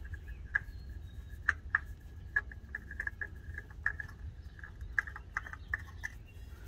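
Light, irregular clicking and scraping of a new spin-on oil filter being turned onto its threaded mount by hand.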